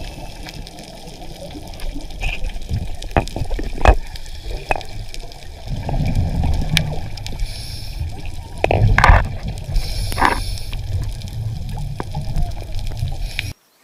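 Underwater sound in a diver's camera housing: a steady low rumble of water with scattered sharp clicks, and two louder spells of bubbling and gurgling, about six and nine seconds in.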